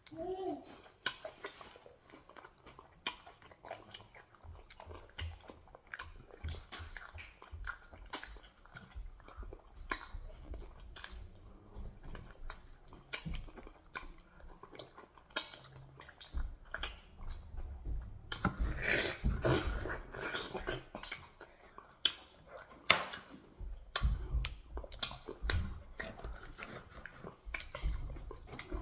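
Close-up chewing and mouth noises of people eating eba (garri) with ogbono soup and ram meat: scattered wet smacks and clicks with soft low thuds, busier and louder about two-thirds of the way through.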